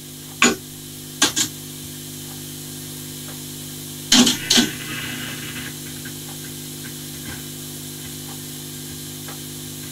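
Two A&D cassette decks, among them the three-head GX-Z6100, fast-winding tape at the same time: a steady whirring hiss with a low hum, both transports winding very fast. Short clicks from the buttons and mechanisms come about half a second in, twice more a second later, and twice about four seconds in.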